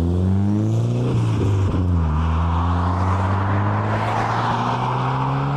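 Ford Sierra Sapphire Cosworth's turbocharged four-cylinder engine accelerating hard away. The pitch climbs, drops at a gear change about a second in, then climbs again.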